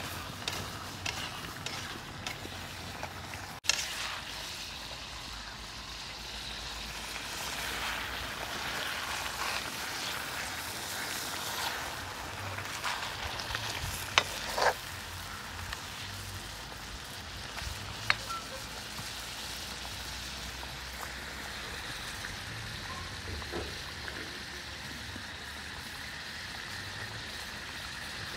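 Tomato-and-potato curry sizzling steadily in a black iron wok over a wood fire, with a few sharp clinks from the metal pan lid, two of them about halfway through.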